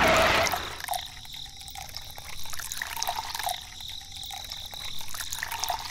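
Water from a small homemade water-pump model splashing and trickling out. It starts with a louder rush, then comes in surges about every one and a half seconds.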